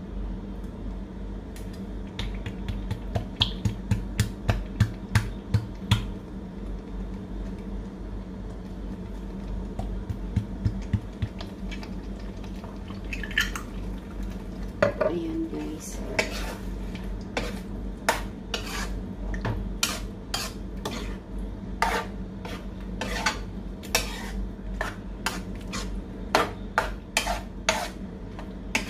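Metal spoon clinking and scraping against a metal wok while stirring a thick tomato-and-meat sauce. The strokes come in runs of quick clinks, about three a second, over a steady low hum.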